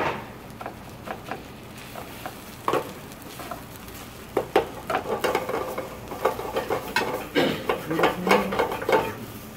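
Long stainless slotted spoon scraping and tapping against a frying pan as fried rice is scooped from one pan into another, over a light sizzle from the pans. The scrapes and taps are sparse at first and come thick and fast in the second half.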